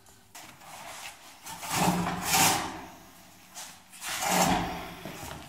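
Heavy wood stove being shoved and slid across the floor in short pushes, scraping, with two main scrapes each about a second long.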